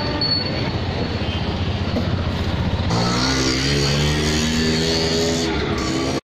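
Street traffic of auto-rickshaws and a bus, with engines running. About three seconds in the sound changes to a nearer engine note that rises in pitch as a vehicle pulls away, and everything cuts off abruptly just before the end.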